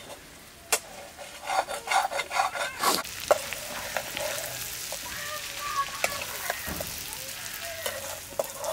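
Steel ladle scraping and knocking against a wok while buffalo intestines fry in it with a steady sizzle. There is a quick run of scrapes between about one and a half and three seconds in.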